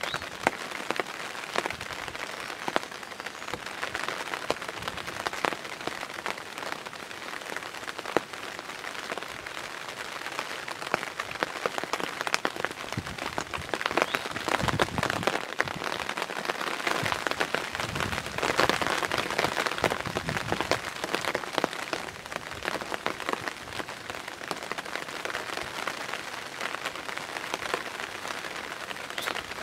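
Steady rain pattering, many small drops ticking, somewhat heavier for a few seconds in the middle.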